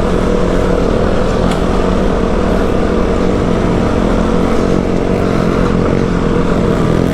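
Off-road motorcycle engine running steadily under load in first gear, pulling up a dirt climb.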